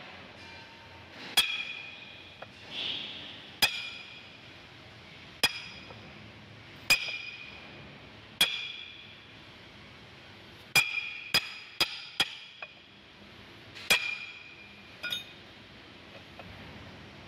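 Hammer blows on steel, about eleven strikes, each with a short bright metallic ring. They mostly come every one and a half to two seconds, with a quicker run of four a little past the middle.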